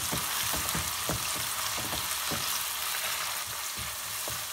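Chopped onion, curry leaves and fresh tomato sizzling in hot oil in a ceramic-coated pan, with a steady hiss, while a wooden spatula stirs them with repeated scraping strokes against the pan. This is the sauté stage of a South Indian masala base, with the onion and tomato softening.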